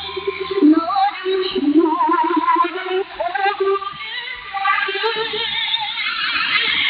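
Music with a woman singing, received off a shortwave radio broadcast: thin-sounding, with nothing above about 5 kHz.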